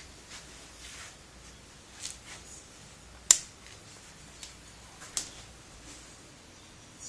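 Scattered sharp clicks and soft handling noises around a bicycle. The loudest is a single sharp click about three seconds in, with a smaller one about two seconds later.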